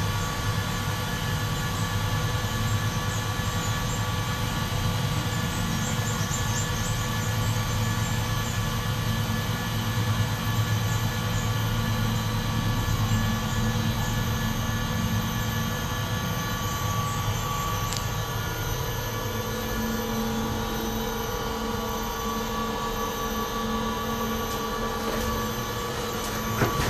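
Steady running noise inside a moving cable car cabin: a low hum with a faint held whine. One sharp click comes about two-thirds through, and a few knocks near the end.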